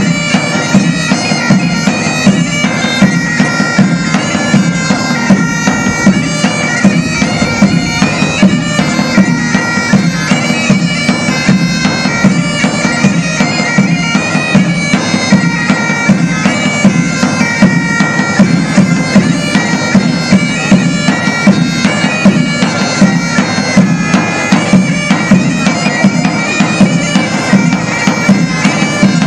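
Bagpipes of an army pipe band playing a tune over their steady drone.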